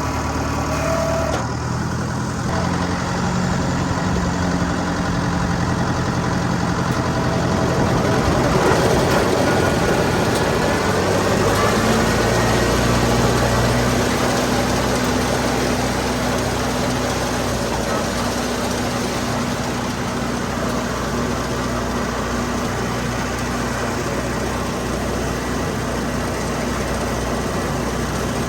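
Tractor engine running steadily. Its engine note changes about two seconds in and again about twelve seconds in.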